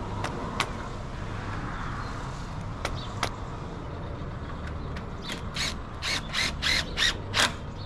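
A power drill driving a screw through a timber fascia board, in a quick run of about eight short bursts near the end, after a few sharp clicks of handling.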